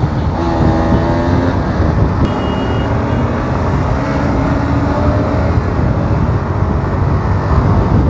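Motorcycle riding along in city traffic: its engine running at road speed under heavy wind rumble on the microphone, with the engines of other motorbikes nearby.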